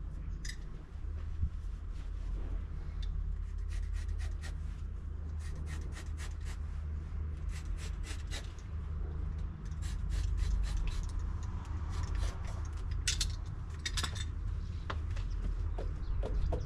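Pond underlay being cut and rubbed around a bottom drain flange: a run of short, scratchy scrapes and rustles over a steady low rumble.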